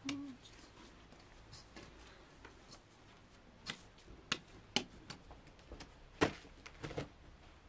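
Bread dough being kneaded and patted by hand in an aluminium basin. There are a few separate sharp slaps and taps in the second half, the strongest about six seconds in.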